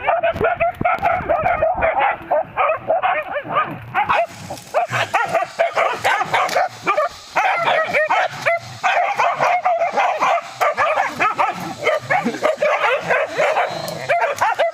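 Several dogs barking and yelping at once, rapid overlapping high-pitched calls that keep up without a break.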